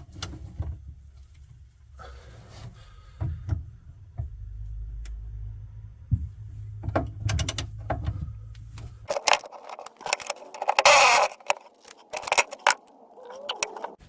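Hand tools clinking and knocking on metal as a classic Mini's rear subframe bolts are undone. A steady low hum runs under the first part and stops about nine seconds in, and there is a louder rasping burst about eleven seconds in.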